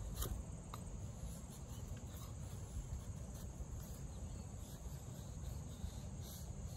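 Quiet outdoor ambience with crickets chirping and a few faint clicks.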